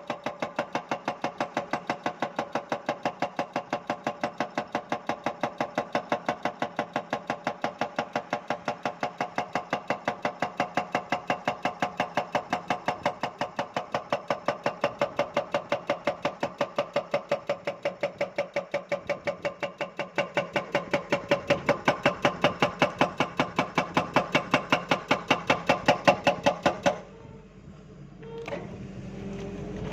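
Excavator-mounted hydraulic breaker hammering rock in a rapid, even train of metallic blows, several a second, with the excavator's engine under it. The blows grow louder near the end, then stop abruptly, leaving the engine running more quietly.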